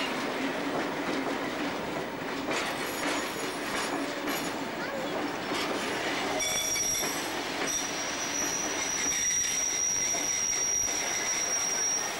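Passenger carriages rolling past on steel wheels, with scattered knocks. About six seconds in, a high, steady wheel squeal sets in, breaks off briefly, then returns and holds.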